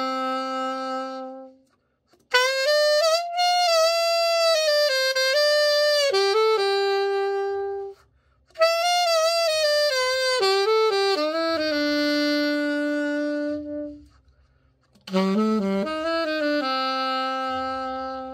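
Selmer Super Action 80 Series II alto saxophone played in slow melodic phrases of long held notes, with short pauses between phrases. It is a play test of the horn after a full overhaul.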